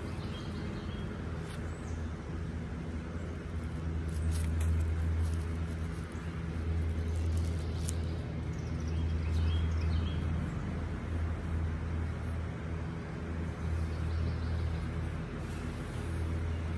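Electric box fan running with a steady low hum and a rush of air, swelling and easing a little. Packaging is handled over it, with occasional rustles and clicks.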